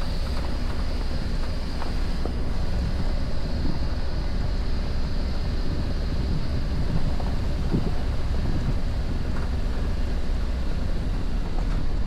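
Toyota Veloz driving over a rough dirt trail: a steady low rumble of engine and tyres, with scattered small knocks from the bumps and wind buffeting the microphone.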